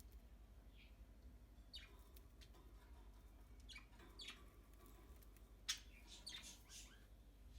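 Budgerigars chirping faintly in short, scattered calls, with one sharper, louder chirp a little past the middle.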